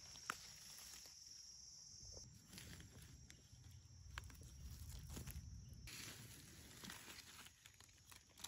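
Near silence: faint rustling and a few light clicks from hands handling dry leaf litter and mushrooms, with a faint steady high-pitched tone for about the first two seconds.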